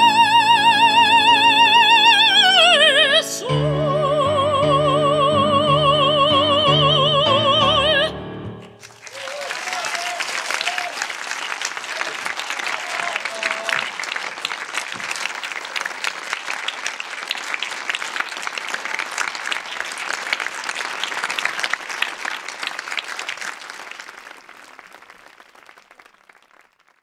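Operatic soprano singing long held notes with wide vibrato over instrumental accompaniment, stopping about eight seconds in. Then an audience applauding steadily, fading out near the end.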